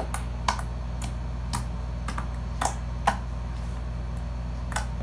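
Slightly stiff pink gloss slime pressed and kneaded by fingers, giving sharp click-like pops, about eight at irregular spacing, over a steady low hum.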